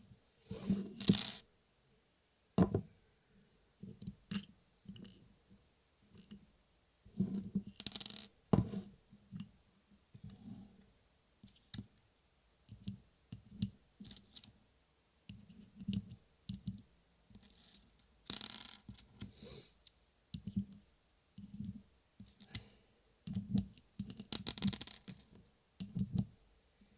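Small nuts and bolts being handled: irregular clicks and clinks as pieces are picked up, turned and set down. There are a few longer rattling bursts, the loudest about 18 seconds in and again near 24 seconds.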